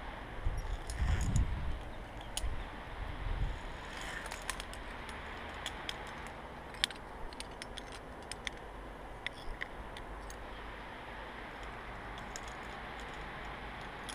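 Via ferrata climbing gear clinking: carabiners and metal lanyard clips knocking against the steel cable and iron rungs as the climber moves up, heard as scattered sharp clicks over a steady hiss, with a few low rumbles in the first few seconds.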